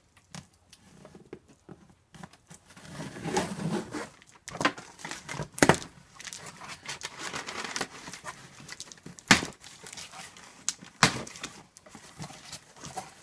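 A subscription box being opened by hand: tape tearing and flaps and packing paper rustling and crinkling, with a few sharp snaps about six, nine and eleven seconds in.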